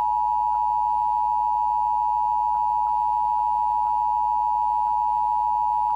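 Emergency Alert System two-tone attention signal: two close pitches sounding together as one steady tone. It marks the start of an emergency alert broadcast.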